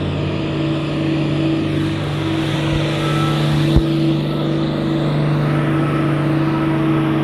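A heavy road vehicle's engine running at a steady speed, giving an unbroken low drone. A single short thump comes a little under four seconds in.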